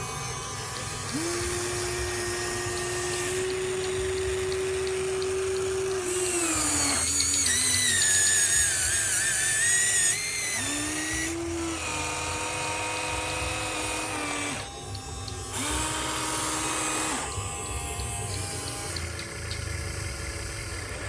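Electric motors of a Huina radio-controlled toy excavator whining in a series of starts and stops, the pitch gliding up and down as it works; a louder, higher whine runs from about six to ten seconds in.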